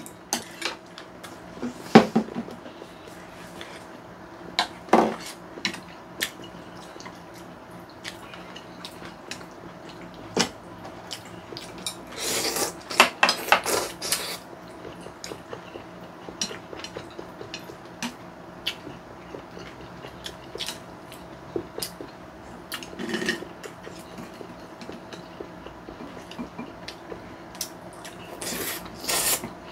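Eating sounds: chopsticks and spoons clicking against bowls and plates many times over, with noodles slurped about halfway through and again near the end.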